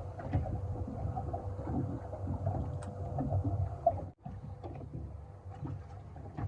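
Uneven low rumbling of water and wind around a small boat, with a faint steady hum underneath. The sound breaks off for a moment about four seconds in.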